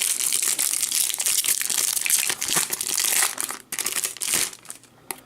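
Trading card pack wrapper crinkling as it is handled and torn open. The crinkling goes on for about four seconds, then stops near the end.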